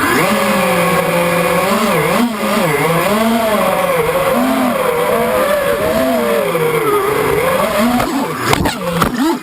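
Wizard X220 racing quadcopter's brushless motors whining under throttle, the pitch rising and falling continually as the pilot works the sticks, turning choppier near the end.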